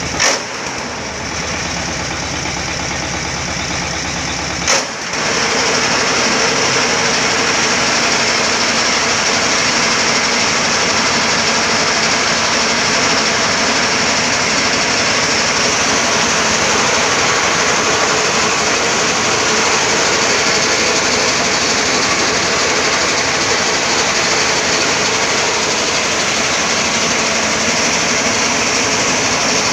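Corn harvesting machine running steadily, a dense mechanical engine noise. There are two sudden breaks in the sound, near the start and about five seconds in, and after the second one it runs louder.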